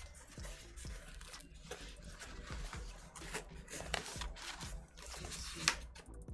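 Cardboard record mailer box being handled: irregular scraping, rustling and light taps of cardboard, with one sharper tap near the end.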